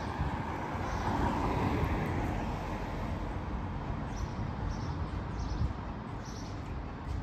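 Street traffic noise, swelling about a second in as a vehicle passes, with a few short, high bird chirps in the second half.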